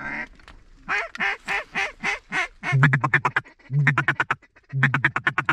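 Mallard quacking: a run of single loud quacks about four a second, then three short bursts of rapid chatter about a second apart.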